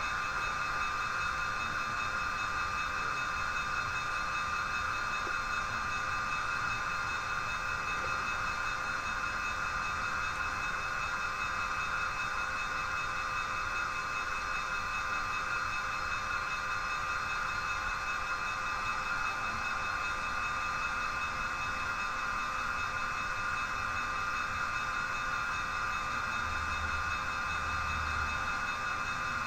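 Steady whine and running noise of H0-scale model trains operating on the layout.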